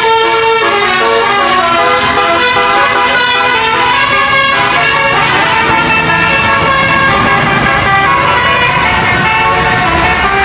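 Indonesian 'telolet' bus horn, a set of multi-tone air horns, playing a quick tune of changing chords. A low engine rumble runs under it in the second half.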